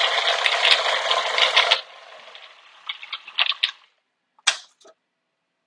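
Food processor running noisily with a rattling grind as it works a thick date-and-tahini mixture, cutting off suddenly a little under two seconds in. Then a few light plastic clicks and one sharp knock as the feed-tube pusher and lid are handled.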